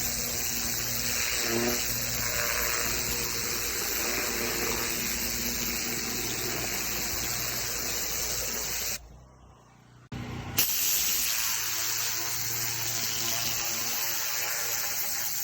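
Pressure washer spraying: a steady hiss of the high-pressure water jet over the hum of the machine's motor and pump. It drops out for about a second and a half about two-thirds of the way in, then comes back with a sharp burst.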